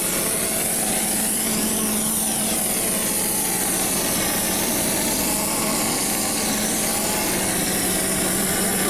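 Compressed-air spray gun hissing steadily as it sprays cement mix fed by an IMER Koine 35 pump-mixer, with a steady machine hum underneath.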